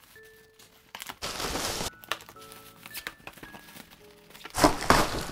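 Shiny metallic gift wrap crinkling and tearing as a present is unwrapped, in two bursts: one about a second in and a louder one near the end. Light background music plays underneath.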